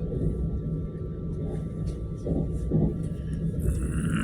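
Suburban electric train running, a steady low rumble of the moving carriage with a faint steady whine above it.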